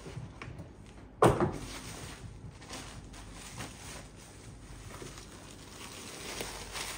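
Packaging being handled: a sharp knock about a second in, then irregular rustling and crinkling of a thin plastic wrap being pulled open around a boxed games console, busier near the end.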